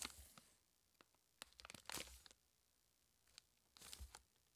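Plastic snack wrapper crinkling and rustling faintly in several short bursts as a sticker card is worked out of it by hand.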